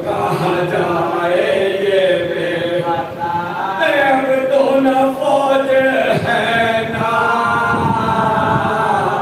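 Several men chanting a marsiya, a Shia elegy for the martyrs of Karbala, in unison with long held melodic lines.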